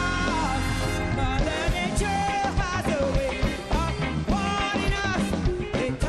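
Live band of drums, electric guitar and keyboards playing an upbeat song, with a woman singing lead over it in gliding, bending vocal runs.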